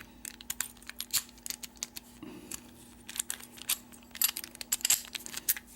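A Master Lock 570 padlock and its keys being handled: light, irregular metal clicks, taps and jingles, with some crinkling.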